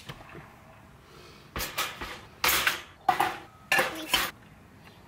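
A wire-mesh cage trap and a stainless steel food bowl clattering as they are set down in a car's cargo area: a run of rattling metal clanks starting about a second and a half in and stopping a little after four seconds.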